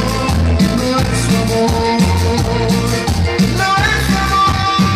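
Loud live Latin dance music from a stage, with a steady thumping bass beat and a held melody line above it.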